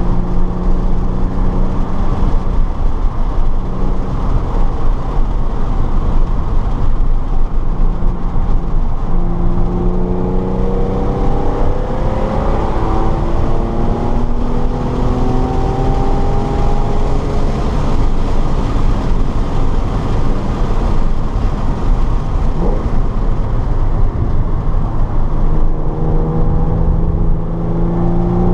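Car engine driven hard on a race track, its pitch climbing again and again as it accelerates, with drops between and steadier stretches, over constant road and wind noise.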